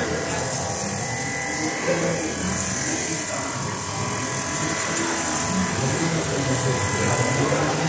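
Automatic sewing machine with a 360° rotating head stitching heavy jacket fabric: a steady, fast electric buzz from the needle mechanism, over constant factory hum.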